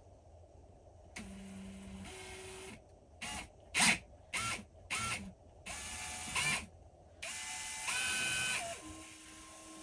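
Cordless drill boring a small pilot hole into a wooden rifle stock, run in stop-start bursts: a few quick blips of the trigger in the middle, then two longer runs, its motor whine at a different pitch from burst to burst with trigger speed.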